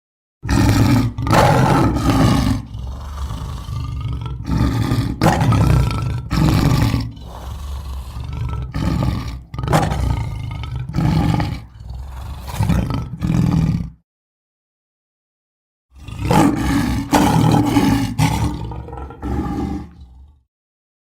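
Cougar giving a series of loud, rough roar-like calls, each about a second long. The run cuts off abruptly after about fourteen seconds and starts again after a two-second silence.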